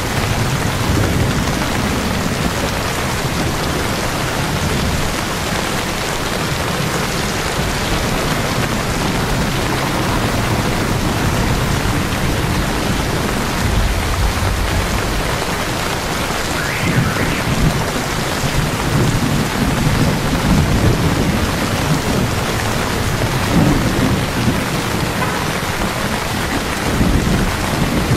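Steady rain falling and splashing on a wet street, with low rumbling swells midway and again near the end.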